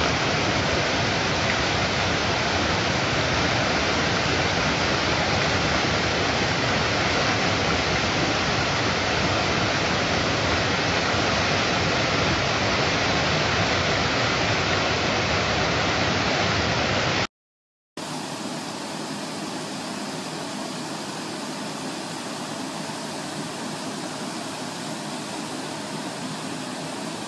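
Water pouring over a river weir: a steady, dense rush of falling white water. It breaks off briefly about two-thirds of the way through, then goes on quieter, heard from further downstream.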